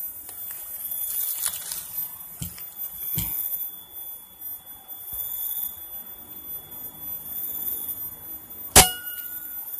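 A single air-rifle shot near the end: one sharp crack with a brief ringing after it, over a steady faint background hiss.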